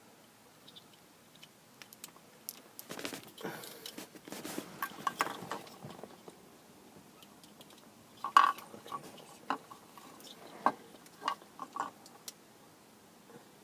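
Wires and plastic connectors of a car stereo wiring harness being handled. A few seconds of rustling with clicks, then scattered sharp clicks and knocks, the loudest about eight seconds in.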